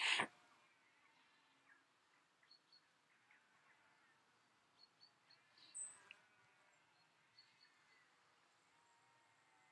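Small birds chirping in a quiet garden: scattered short high chirps with fainter song behind them. A brief, louder noise comes right at the start.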